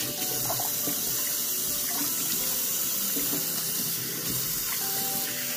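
Kitchen tap running steadily into a stainless steel pot of cut okra in the sink, water splashing as the okra is rinsed.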